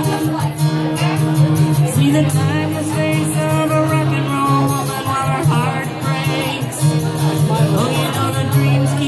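A woman singing a song while strumming chords on an acoustic guitar.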